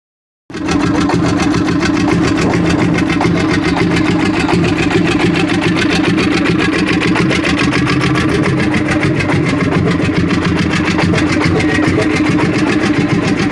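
Lanz D2416 Bulldog tractor's single-cylinder two-stroke hot-bulb engine running steadily at idle, with a rapid, even beat; it starts about half a second in.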